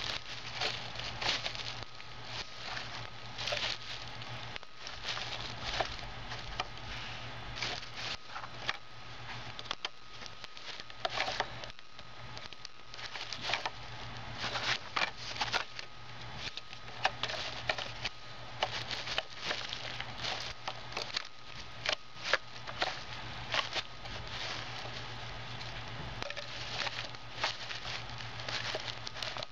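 Crumpled tissue paper and a plastic bag crinkling and crackling as they are stuffed and pressed by hand into a small Lego-brick trash compactor, in many irregular crackles and clicks, over a faint steady hum.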